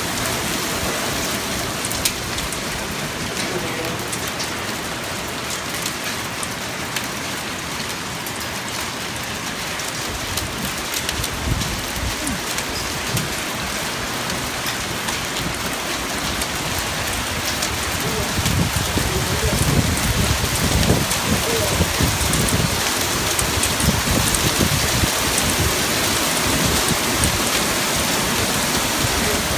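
Heavy rain falling steadily on wet pavement. A low rumble swells about a third of the way in and again, more strongly, about two-thirds through.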